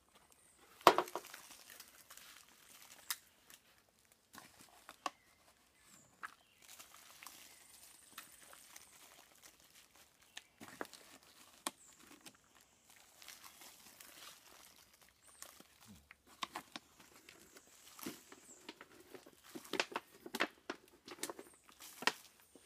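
Scattered rustling, scraping and soft knocks as soil is scooped with a tin can and tipped onto a compost pile of dry leaves and fruit peels. A sharp knock about a second in is the loudest sound, and the rustling grows busier near the end.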